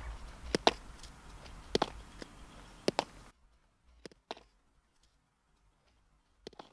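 Baseball short hops: the ball bouncing off the infield dirt and popping into a leather fielder's glove, sharp clicks in close pairs about once a second, three times. The background hiss drops off suddenly about halfway through, and two fainter pairs of the same clicks follow.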